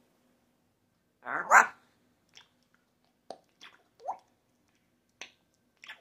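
African grey parrot vocalizing: one loud call with a rising end about a second in, followed by a scatter of soft clicks and short rising chirps.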